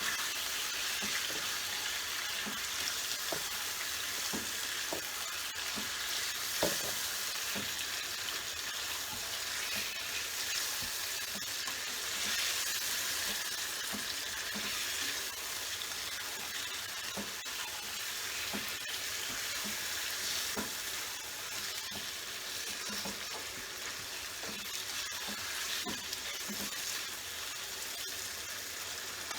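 Bone-in chicken pieces with chili paste sizzling in hot oil in a pan as they are sautéed, with a steady frying hiss. Irregular light knocks and scrapes from stirring against the pan come through now and then, the sharpest about six and a half seconds in.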